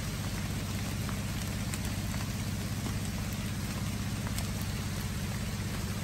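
Steady rain falling on the rainforest at night, an even hiss and patter with a few sharper drop taps here and there.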